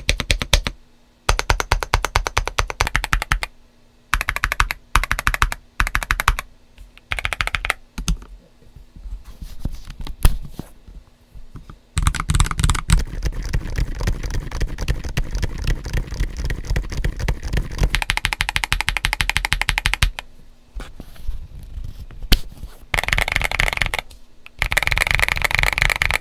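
Typing on a GAS67 mechanical keyboard in several builds, one after another. First Akko CS White switches under ABS doubleshot Cherry-profile keycaps, in short bursts of keystrokes with pauses. From partway through, Gazzew Bobagum silent switches under o-ringed PBT keycaps typed more continuously, and near the end Gazzew U4T switches under SA-profile ABS keycaps.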